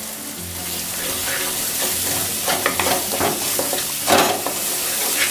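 Thick masala paste sizzling in hot mustard oil in a kadai, while a wooden spatula scrapes and stirs it through the pan in several strokes, the loudest about four seconds in.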